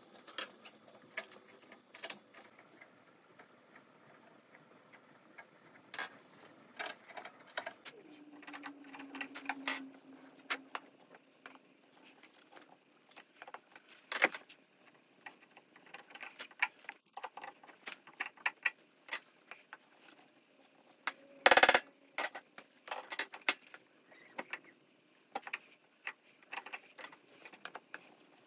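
Scattered clicks and knocks of hand tools and wooden boards being handled and set down on a wooden workbench, with one louder knock about three-quarters of the way through.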